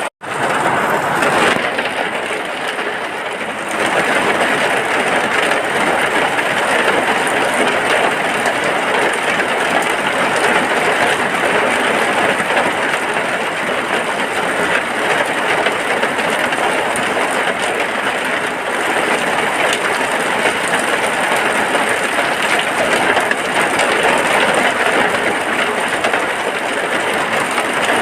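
Rain falling steadily on a hut, a dense, even hiss with no pauses, briefly cutting out for a split second at the very start.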